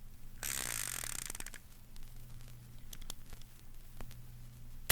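Revolver sound effect: the cylinder is spun with a quick ratcheting whir lasting about a second, then a few faint clicks, and a sharp loud click at the very end as the hammer falls on an empty chamber. A steady low hum and record surface noise run underneath.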